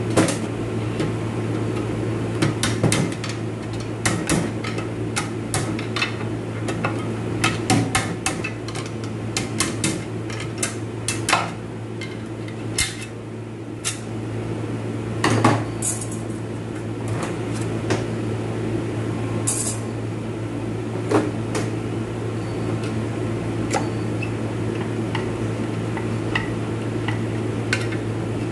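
Metal parts of an automatic transmission clinking and knocking as they are taken apart and handled with tools, in irregular taps and clanks. A steady low hum runs underneath.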